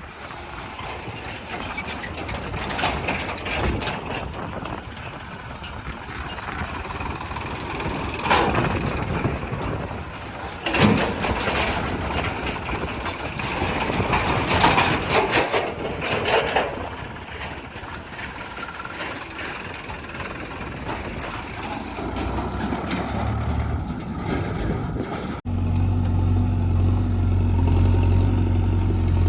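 Diesel engine of a JCB 3DX backhoe loader running under work, with loud clanks and thuds from the loader working. About 25 seconds in, the sound cuts abruptly to a louder, steady engine hum.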